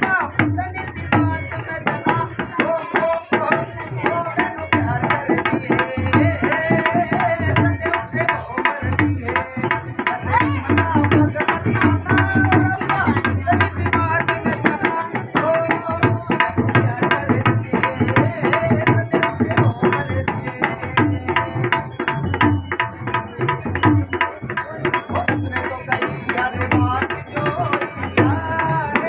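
Upbeat Punjabi-style dance song with a steady, pounding drum beat under a sung melody, played loudly.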